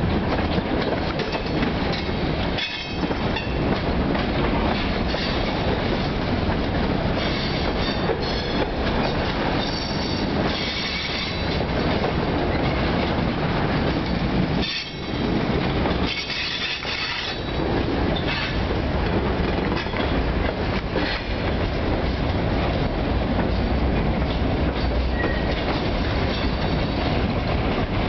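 Loaded freight cars rolling past at close range: a steady rumble and clatter of steel wheels over rail joints, broken several times by short bursts of high metallic squeal from the wheels.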